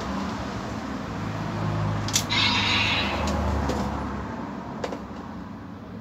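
Toy Kamen Rider Geats transformation belt with the DX Water Raise Buckle, its electronic sound effects playing through the toy's small speaker. A sharp plastic click about two seconds in, followed by a swell of noisy effect sound and a few lighter clicks as the buckle is handled.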